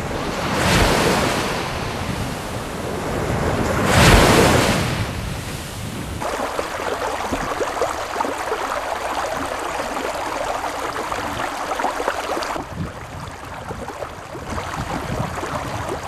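Muddy river water washing and lapping against a mud embankment, with two bigger surges of wash about one and four seconds in, then steady choppy lapping.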